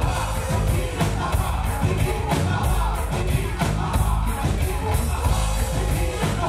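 Live electro-cumbia band playing: a drum kit keeping a steady beat under heavy bass and electric guitar, with a voice over the microphone.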